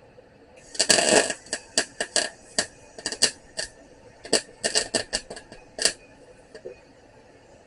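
MIG welder arc crackling in bursts while welding a nut onto a broken-off bolt stub. One longer burst comes about a second in, then a dozen or so quick short ones.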